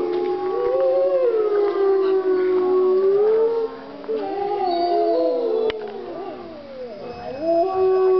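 Several wolves howling together in a chorus: long, overlapping howls at different pitches, one held steady while others glide up and down. The chorus thins out about two-thirds of the way through, then a new long howl starts near the end.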